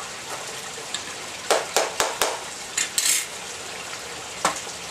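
Clinks and a scrape from a small hand tool and a ceramic bonsai pot being handled: four quick clinks about a second and a half in, a short scrape around three seconds, and one knock near the end, over a steady hiss.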